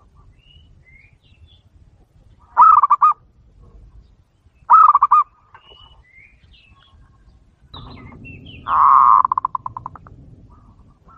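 Zebra dove (perkutut) song: two short runs of rapid rolling coos, then a longer rolling coo near the end that trails off in quickening pulses. Faint chirps of small birds come in between.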